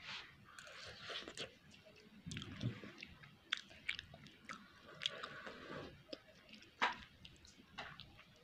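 A person chewing a mouthful of noodles, with many small, wet mouth clicks scattered throughout.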